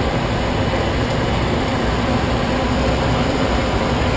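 Steady noise in a private jet's cockpit during the approach to land: a rushing of air and engines with a faint low hum.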